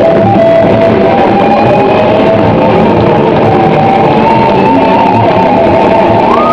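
Two electric guitars playing a loud rock duet, with long held lead notes and a note bent upward near the end.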